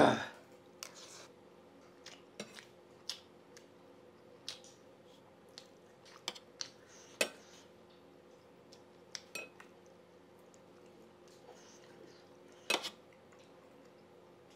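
Metal spoon clinking and scraping against a brass plate and bowl while eating rice and dal: a dozen or so sharp, separate clinks spread out, the loudest at the very start, over a faint steady hum.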